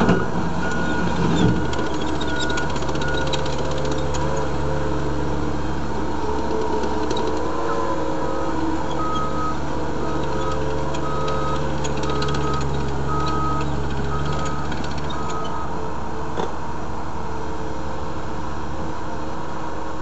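Caterpillar 247B compact track loader's diesel engine running steadily while the machine drives and lifts its bucket. A high beep repeats about twice a second in the first few seconds and again through the middle, and there is a short thump about a second and a half in.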